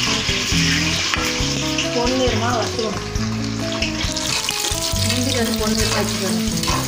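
Food frying with a steady sizzle in hot fat at the bottom of a pressure cooker pot, stirred with a steel spoon. Background music with held notes plays underneath.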